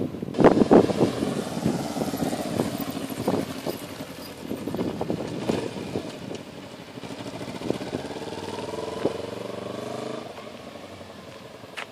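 Kawasaki Ninja 250 parallel-twin motorcycle engine running as the bike rides by and away. Its pitch rises as it accelerates from about seven seconds in, then falls off shortly before the end.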